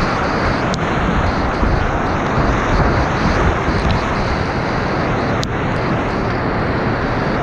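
Whitewater rapids rushing loudly and steadily around a kayak, heard up close from the boat, with two sharp clicks, one near the start and one about five and a half seconds in.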